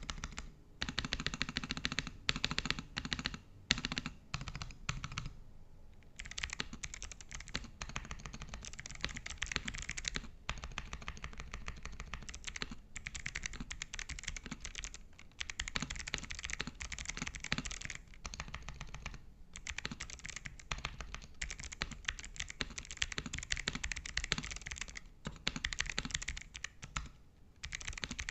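Fast typing on a Pressplay Rover84 v3 mechanical keyboard with clicky Kailh Box White switches: a dense run of sharp key clicks, broken by a short pause about five seconds in and a few brief gaps.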